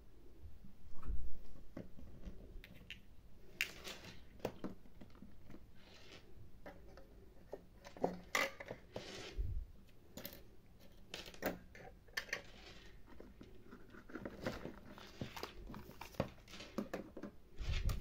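Small plastic toy pieces handled and set down on a hard surface: scattered light clicks and taps, with a few dull bumps, the loudest about a second in.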